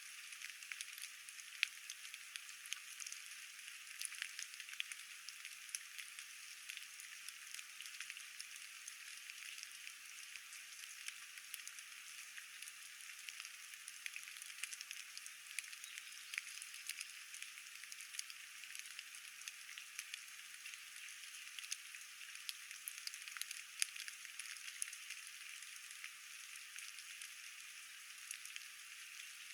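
Light rain falling steadily: a faint, even hiss dotted with many small drop ticks.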